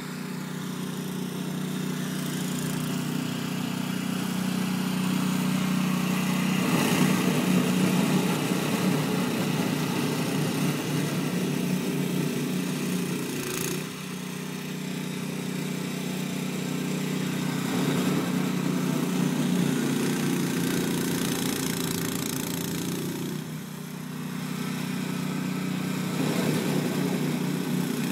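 Toro Power Clear 621 QZE single-stage snowblower running under load, its engine and auger working through deep snow and throwing it out of the chute. The sound swells and eases several times, dipping briefly about halfway through and again near the end.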